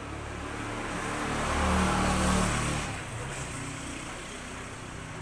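A vehicle passes by. Its engine and road noise swell to a peak about two seconds in and fade away over a steady low hum.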